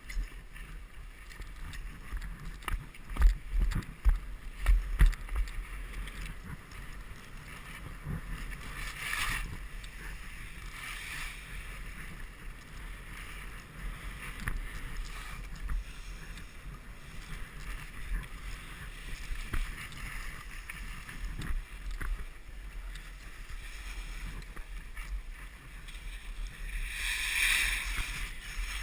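Skis hissing and scraping over packed snow at speed, with a steady low wind rumble on the microphone. A few low thumps come a few seconds in, and the edges scrape louder through turns several times, longest near the end.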